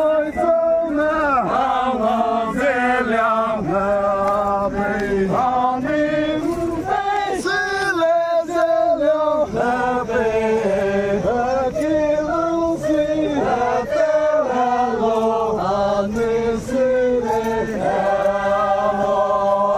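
Group of male voices chanting a folk song together, the melody moving in short phrases over a steady low held note.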